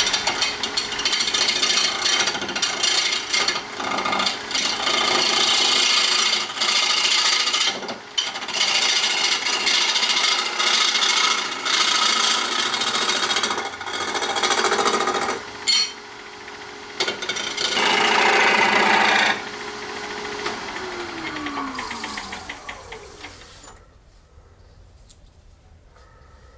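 Turning tool cutting a spinning resin-and-burl hybrid orb on a wood lathe: a loud scraping hiss in long stretches with short pauses, over the lathe's steady hum. Near the end the lathe winds down to a stop, its whine falling in pitch.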